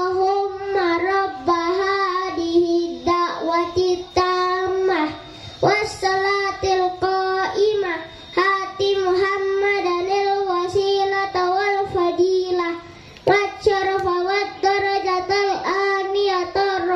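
A young child singing a solo chant into a microphone, in short phrases of held, wavering notes with brief pauses between them.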